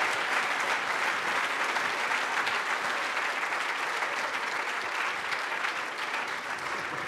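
A large audience applauding, the clapping slowly dying away.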